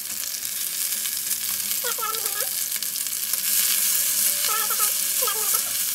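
Sliced onions sizzling and crackling in hot oil in a kadai with mustard seeds and cumin, stirred partway through. The sizzle gets louder a few seconds in.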